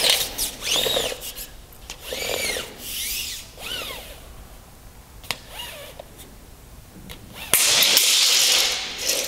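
Steel blade of a Milwaukee Stud tape measure being fed out of its case and held out unsupported. The flexing blade gives wobbly tones that rise and fall in pitch, with a few clicks. Near the end comes a louder rushing scrape lasting over a second.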